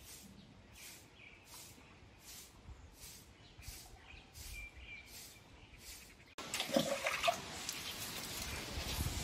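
A bird chirping over and over, a short high call about twice a second. About six seconds in, louder knocks and clatter come in over the outdoor background.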